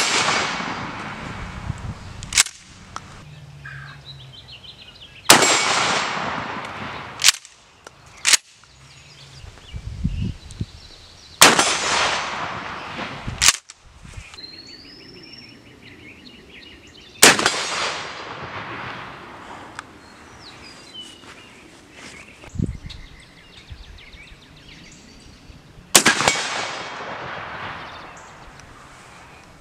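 A 12-gauge Mossberg shotgun firing slugs: five loud shots a few seconds apart, each with a long echoing decay, and shorter sharp clacks in between.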